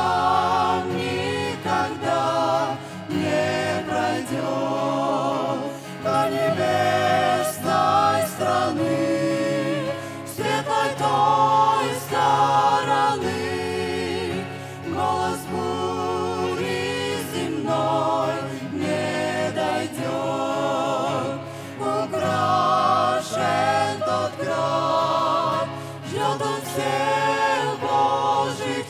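Mixed group of women's and men's voices singing a Russian-language hymn in harmony, with vibrato, over an acoustic guitar accompaniment, in phrases a few seconds long.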